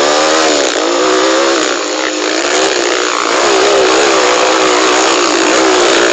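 Dirt bike engine heard from on board while riding a trail, its pitch rising and falling again and again as the throttle opens and closes.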